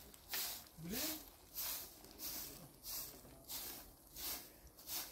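Straw hand broom sweeping dry, dusty dirt ground in regular swishing strokes, about one and a half a second.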